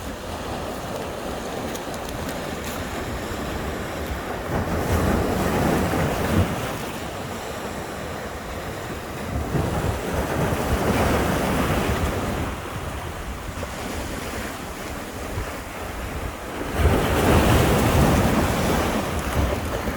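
Rough sea surf, with large waves surging and breaking three times, about every six seconds, over a constant wash of water. Wind buffets the microphone throughout.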